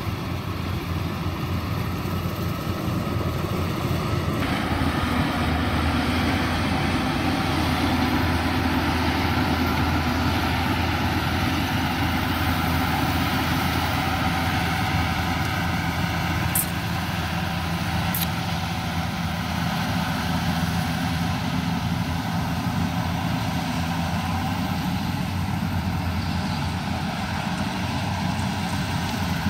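Yanmar 850 rice combine harvester running steadily as it cuts rice: a low, even engine drone.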